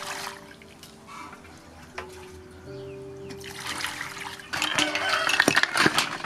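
Water poured from a bucket over large sea snails in a metal colander trickles into a steel basin. About four and a half seconds in comes a loud, splashing clatter as the colander is tipped and the snails drop into the water, with the shells knocking against the metal.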